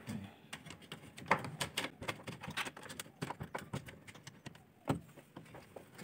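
Irregular clicks and light knocks of washing-machine parts being handled and fitted back into place by hand.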